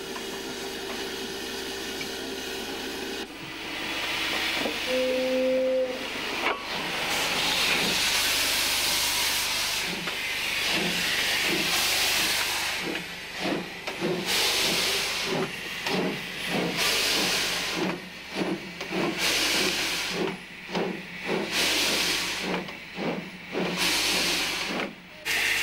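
Steam locomotive working: loud steam hiss with a short whistle toot about five seconds in, then a steady rhythm of exhaust chuffs, about two a second.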